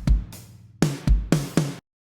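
A drum loop of kick drum and snare hits playing in a quick pattern, then cutting off abruptly near the end as playback stops.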